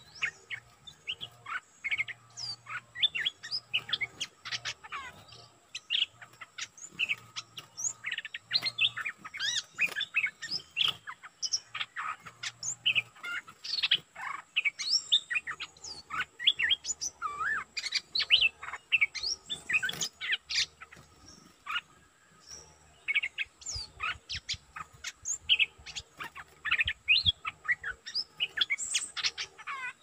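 Stripe-throated bulbul, a caged decoy used to lure wild bulbuls, calling in rapid, busy runs of short chirps and whistles with only brief pauses.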